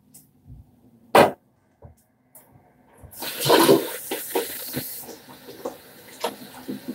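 A sharp knock about a second in, then water from a bathroom tap comes on suddenly about three seconds in: a loud gush at first that settles into a steady running rush with small splashes.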